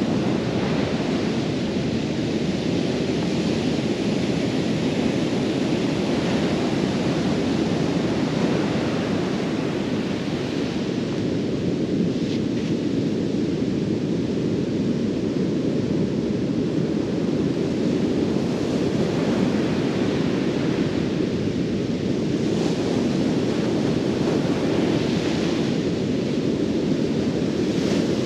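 Breaking ocean surf, a steady wash of noise, with wind on the microphone.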